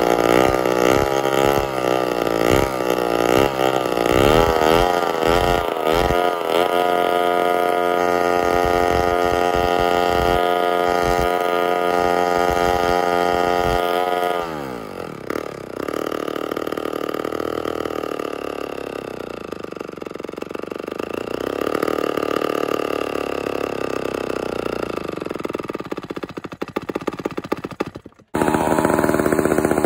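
Vintage two-stroke chainsaw running: the engine surges unevenly at first, then holds steady at high revs. About halfway it drops to a lower, uneven idle, and it cuts off suddenly near the end, where another saw's engine takes over.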